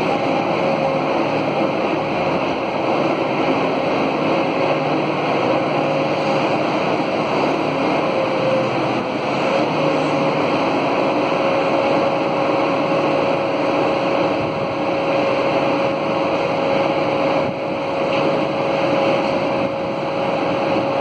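Steady machinery noise with a constant mid-pitched hum running underneath, unchanging throughout.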